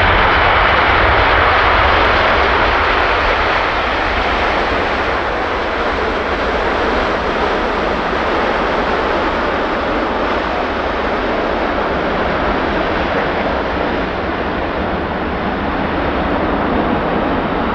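Jet noise from a landing Boeing 777-300ER's twin GE90-115B turbofans: a loud, even rush, strongest in the first few seconds, then easing off a little and holding steady.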